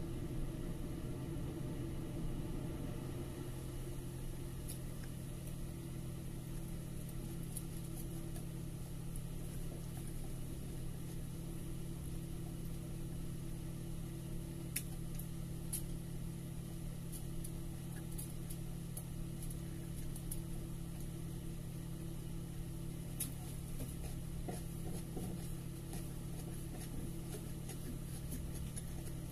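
A steady low mechanical hum, with a few faint clicks now and then.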